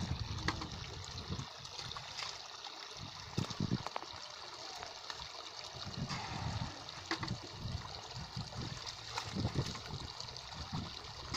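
Shallow water trickling steadily, with irregular splashes and sloshes as a person wades through it and dips a plastic bucket in.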